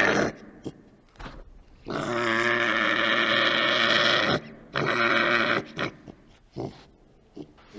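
Badger calling: a short call at the start, then one long, low-pitched call of about two and a half seconds, a shorter one after it, and a few brief sounds near the end.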